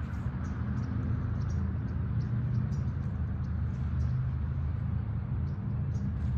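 Steady low rumble of distant city traffic, with faint scattered ticks.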